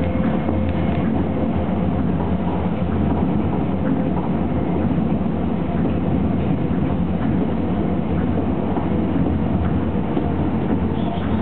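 Tokyo Monorail car in motion, heard from inside: a steady low rumble from its rubber-tyred running gear on the elevated beam, with a constant hum and faint scattered clicks.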